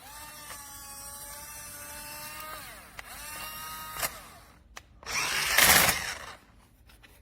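Electric motor of an AONEPTR remote-control truck whining at a steady pitch, dropping in pitch as it stops after about two and a half seconds, then running again briefly. A click follows at about four seconds, then a louder rushing noise from about five to six seconds in.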